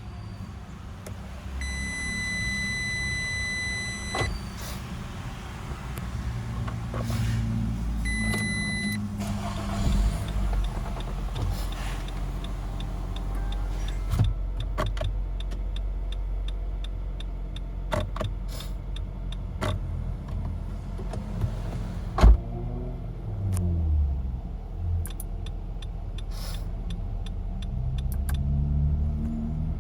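Nissan X-Trail T32 instrument-cluster speaker sounding a steady electronic warning tone for about two and a half seconds, then briefly again about eight seconds in, showing that the cluster's warning sound works. Under it runs a low steady rumble from the car, with scattered sharp clicks later on.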